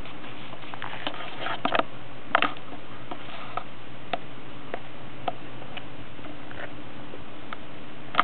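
Poodle puppies' paws scrambling and digging in dry wood-chip mulch, giving scattered crackles and rustles over a steady background hiss, with a cluster of louder crackles about two seconds in.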